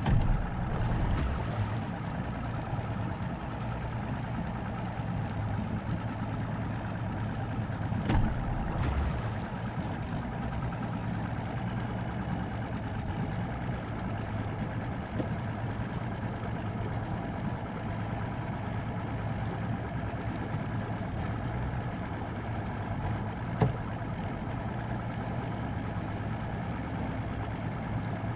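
Boat motor running steadily at low speed with a constant low hum. A few brief knocks come through, about a second in, about eight seconds in, and a sharp one about twenty-three seconds in.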